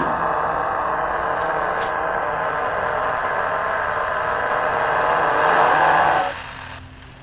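Shortwave radio receiver playing a strange, steady, rushing noise-like signal. About six seconds in the signal drops away, leaving fainter hiss and a low hum.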